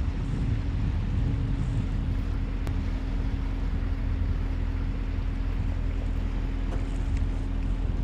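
Small motor boat's engine running steadily underway, an even low hum, with a wash of water and wind noise over it.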